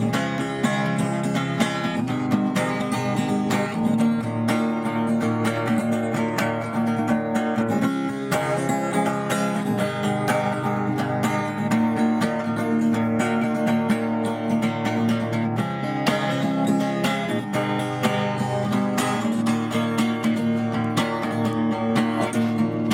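An acoustic guitar being strummed, as instrumental music.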